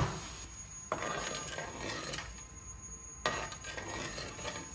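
Metal spoon knocking and scraping against a cooking pot of dal, with two sharper knocks, about a second in and just past three seconds.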